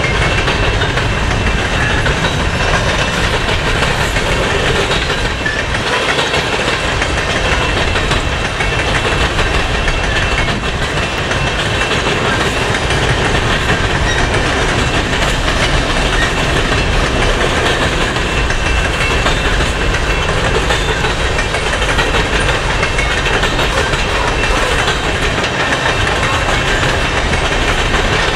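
Coal train hopper cars rolling past close by: a steady rumble with the clickety-clack of steel wheels on the rails.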